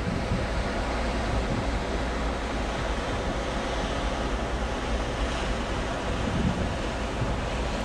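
Steady rush of wind and sea from a ship under way, with wind buffeting the microphone.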